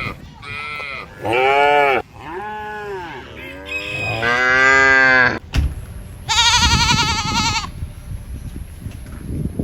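Farm animals bleating: a series of about five drawn-out calls, each rising and falling in pitch, then a higher call with a quavering pitch after a short pause.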